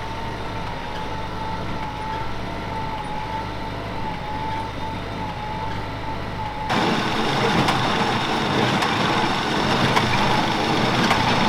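Kubota tractor engine running steadily with a wavering whine, while working the hay field with a square baler. About two-thirds of the way through, the sound cuts abruptly to a louder, rougher engine sound.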